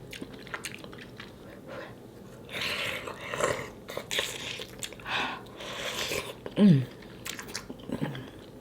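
Close-up eating sounds of mussels in spicy sauce being eaten: sharp clicks of chewing and lip smacks, with several longer wet noisy stretches, and a short falling hum from the eater about two-thirds of the way in.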